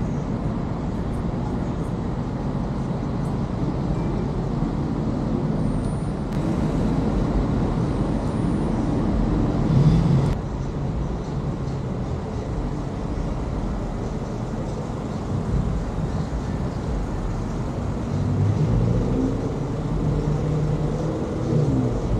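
Car engine and road noise from a slowly moving car: a steady low rumble, briefly louder about ten seconds in.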